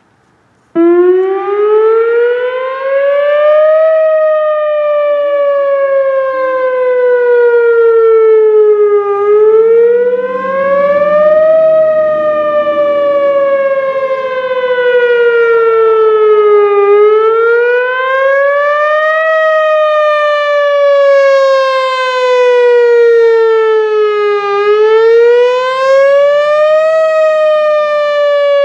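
Whelen Vortex R4 outdoor warning siren sounding a wail during a routine test. It comes on suddenly about a second in, and its pitch climbs over about three seconds, then sinks slowly over about five. The cycle repeats roughly every seven and a half seconds.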